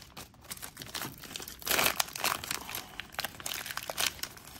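Plastic wrapper of a trading-card pack crinkling and tearing as it is pried open by hand, in irregular crackles with a louder burst nearly two seconds in. The wrapper is stubborn and hard to open.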